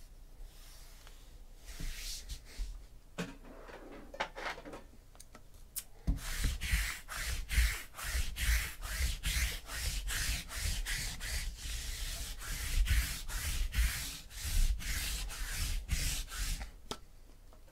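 A few soft taps and shuffles of card stacks being squared, then about six seconds in a lint roller is rolled quickly back and forth over the tabletop, a steady run of about three strokes a second for some ten seconds.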